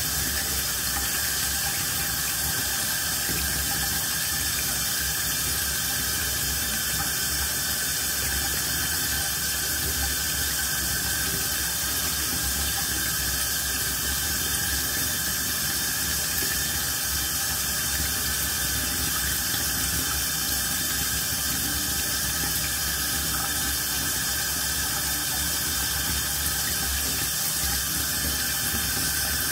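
Bathroom sink tap left running into the basin: a steady rush of water with a thin, steady high tone in it.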